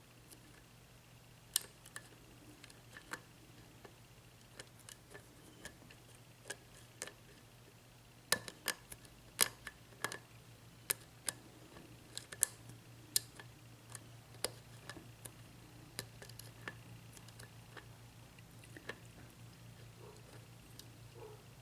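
Small, irregular metallic clicks and ticks of a lock pick probing and setting the pins of a Yale 6-pin mortise lock cylinder, fitted with spool and serrated pins. The clicks come thickest in the middle and thin out near the end, over a low steady hum.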